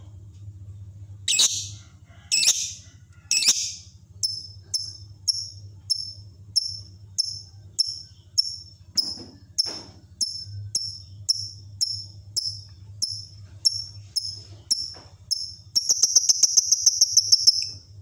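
A lovebird calling: three loud, harsh shrieks in the first few seconds, then a long, even run of short, high chirps, nearly two a second, that breaks into a rapid continuous trill near the end. A faint low hum runs underneath.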